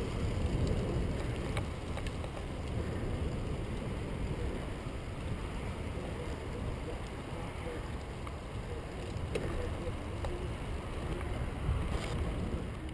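Wind rushing over the microphone of a camera riding on a moving bicycle: a steady low rumble with a few faint ticks from the bike.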